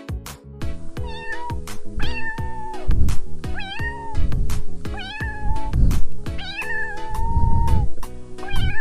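Domestic cat meowing over and over, about six drawn-out meows, with background music and a steady beat under it.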